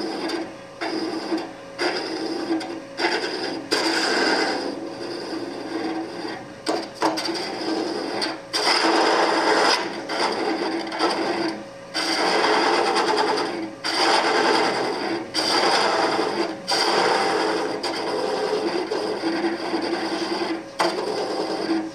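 A woodturning gouge cuts into a cylinder of pale wood spinning on a lathe, hollowing the inside. The cutting noise comes in a long series of passes that stop and start every second or two, over the lathe's steady hum.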